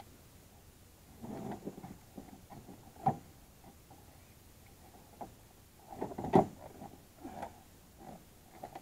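Scattered knocks, scrapes and thumps as a big catfish is handled with a fish gripper and lowered into a plastic cooler in a small boat. A sharp knock comes about three seconds in, and the loudest, a single sharp thump, about six seconds in.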